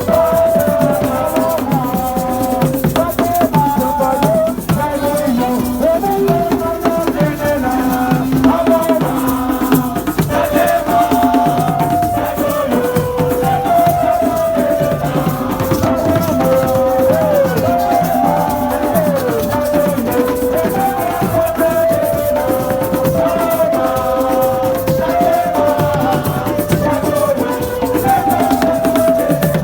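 Music: a melody of held notes that step up and down, over a steady beat with a shaken rattle.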